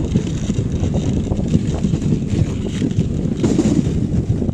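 Wind buffeting the microphone on a moving dog sled, a steady uneven rumble, over the rushing hiss of the sled sliding across snow.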